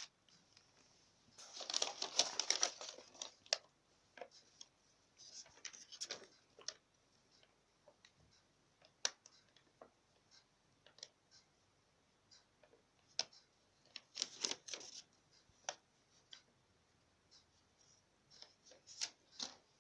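Plastic packaging bags crinkling and small plastic parts clicking as a new toilet cistern valve kit's gaskets, nuts and bolts are handled, in short bursts with scattered ticks between.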